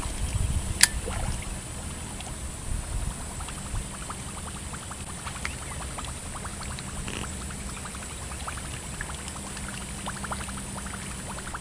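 Fishing lure being retrieved across the surface of calm canal water, giving faint small splashes and quick ticks throughout over a low rumble, with one sharper click about a second in.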